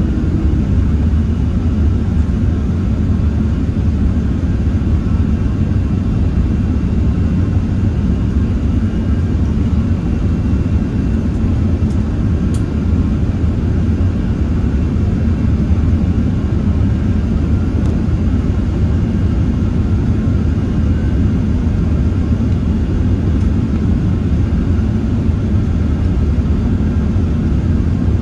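Steady low cabin roar of an Airbus A380-861 climbing after takeoff, its four Engine Alliance GP7200 engines at climb power together with airflow over the fuselage, heard inside the cabin.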